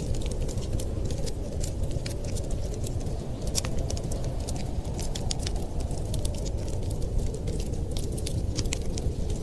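Wood fire crackling in a fireplace: many small, irregular sharp pops and snaps over a steady low rumble.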